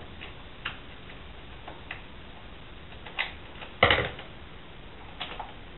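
Scattered light clicks from scissors and stiff adhesive vinyl film being handled and trimmed, irregular and a second or so apart, with one louder click about four seconds in.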